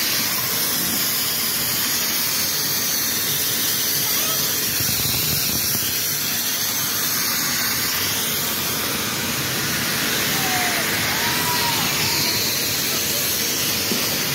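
Steady loud hiss of the air blowers in an indoor snow park, with a few faint short squeaks about ten seconds in.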